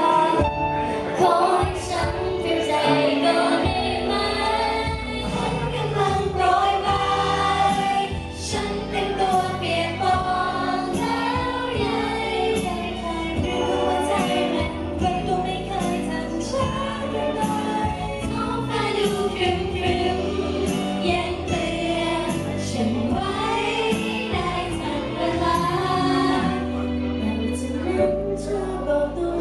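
Music: a song with singing over an instrumental backing track.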